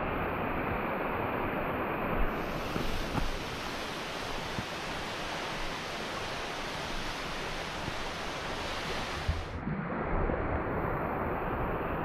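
Waterfall and mountain stream rushing steadily, a continuous noise of falling and running water.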